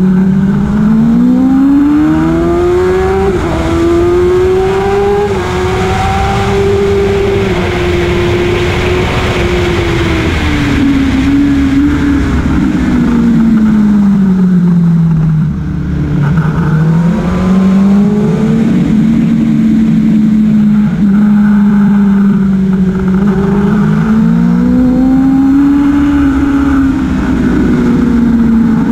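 Motorcycle engine running hard on a track lap, its pitch climbing over the first few seconds, sinking to its lowest about halfway through as the bike slows for a corner, then rising again under acceleration, with wind noise rushing over the camera.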